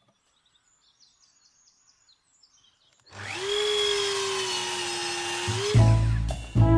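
Near silence for about three seconds, then a woodworking power tool's motor starts, spinning up with a rising whine and running steadily for about two and a half seconds. Music with low brass notes comes in near the end.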